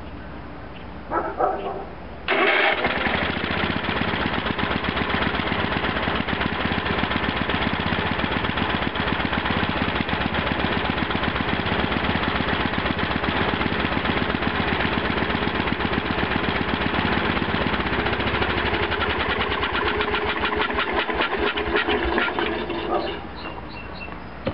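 Single-cylinder Kohler Magnum 12 engine on a Wheel Horse 312-8 garden tractor starting suddenly about two seconds in, then running steadily with a fast, even firing beat. It runs on a freshly cleaned carburetor, having started without priming. The sound drops away shortly before the end.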